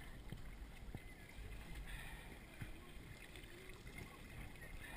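Quiet river water lapping and trickling around canoes and kayaks held against a rock bank, with a few faint knocks, the clearest about two and a half seconds in.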